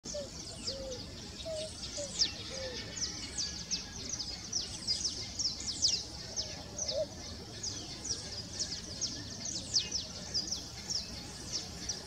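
Many high, quick chirps from other birds, several a second and each sweeping downward, with a few faint low coos from a picazuro pigeon, mostly in the first three seconds.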